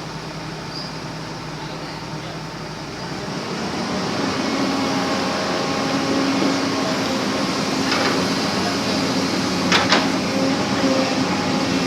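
Backhoe's diesel engine running steadily, its pitch and level rising about three seconds in, with a few sharp clanks near the end.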